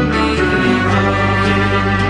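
Background music: an instrumental stretch of a song, with held notes over a steady bass line.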